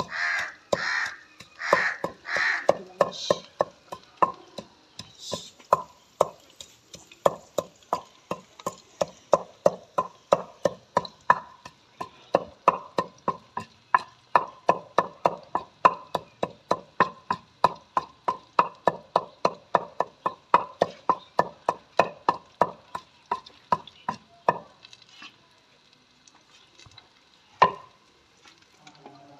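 Long wooden pestle pounding garlic and spices into a paste in a stone mortar: steady, even knocks, about two to three a second. The pounding stops about 25 seconds in, and one single louder knock follows near the end. Loud bird calls sound over the first few knocks.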